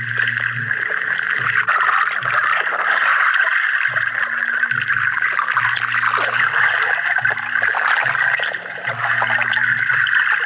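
Underwater noise picked up by a submerged camera: a steady hiss with gurgling water, and a low hum that comes and goes.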